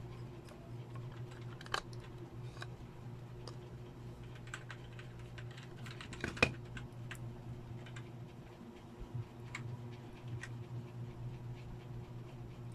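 Light clicks and taps of a smartphone's motherboard and plastic frame being handled and fitted together, with one louder knock about six and a half seconds in, over a steady low hum.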